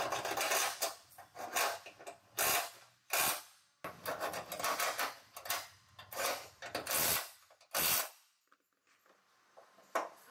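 Irregular scraping and rubbing strokes from hand work on car bodywork, about a dozen over eight seconds, then quieter with one more stroke near the end.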